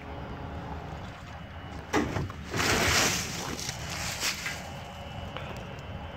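Wind rumbling on the phone's microphone, with a sharp knock about two seconds in and then a loud, brief rushing gust, and a few faint clicks later.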